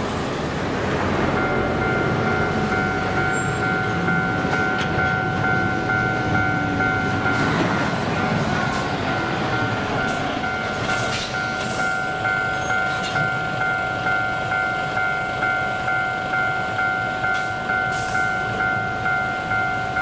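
Japanese railway level-crossing warning bell starting up about a second in and ringing on at a steady pace, signalling an approaching train. Road traffic runs underneath.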